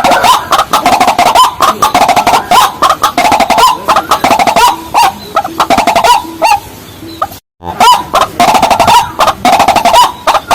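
White-breasted waterhen and watercock calls: a loud, fast, continuous run of harsh repeated notes with short upward-sliding tones. The sound cuts out completely for a moment about seven and a half seconds in, then picks up again.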